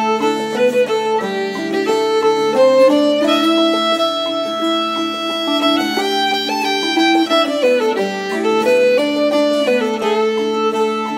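Instrumental background music: a string melody moving note to note over a steady low note.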